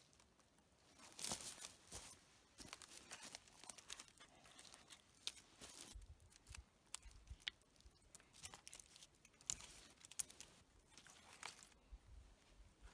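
Faint crackling, scraping and knocking of dry wooden poles with loose bark as they are handled and leaned against a shelter's ridge pole, with a louder rustle about a second in.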